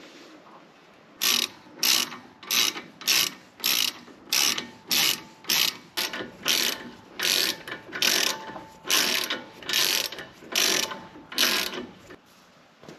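Ratchet wrench being worked back and forth in about eighteen quick strokes, each a short burst of clicking, roughly one and a half strokes a second.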